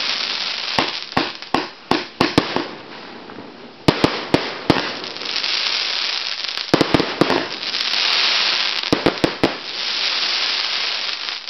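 Aerial fireworks going off: many sharp bangs in quick clusters, with a steady hiss between the bursts.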